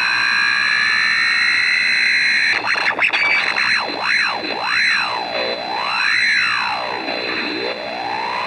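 Portable AM radio (Grundig G8) squealing with interference from a MOSFET and 555-timer pulse circuit: whistles glide toward each other, break into a choppy stutter about three seconds in, then swoop down and back up in three deep dips, crossing each other over a steady high tone and hiss. The shifting whistles follow the circuit's charge-dump capacitor charging and firing through a neon bulb, and its underdriven 555 timer flipping between operating modes.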